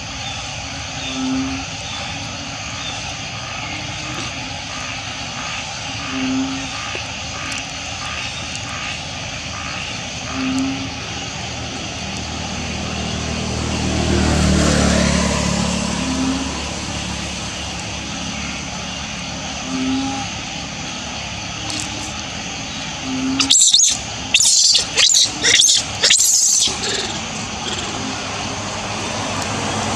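A steady engine-like drone that swells and fades about halfway through, with short low blips every few seconds. A quick run of loud, sharp noises comes a few seconds from the end.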